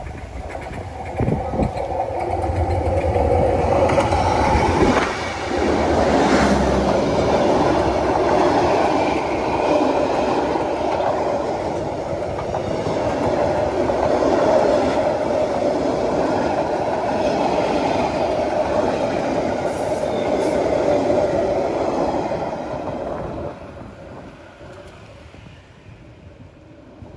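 Diesel locomotive and passenger train passing close by on the track. The locomotive's engine rumbles low for the first few seconds, then the coaches roll past with steady wheel noise and clatter on the rails. The noise drops away about 23 seconds in as the last coach goes by.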